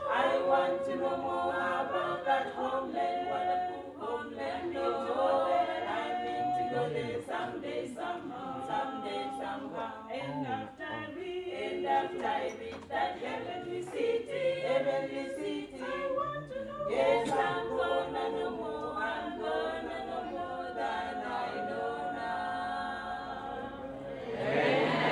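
A small mixed vocal group of women and a man singing a gospel hymn a cappella in harmony, with no instruments, through microphones. Applause breaks in right at the end.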